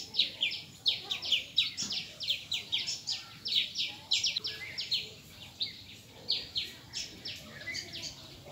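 Birds chirping: a dense run of short, high chirps that each slide downward, several a second, some overlapping.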